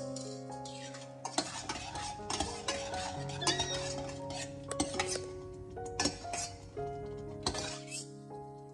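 A metal spoon clinking and scraping in a cooking pot, in irregular knocks from about a second in until near the end, over background music.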